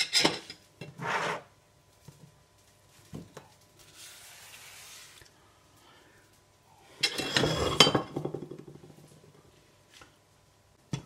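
Kitchenware clattering: a couple of knocks near the start, then a longer rattling clatter of dishes and utensils about seven seconds in that trails off.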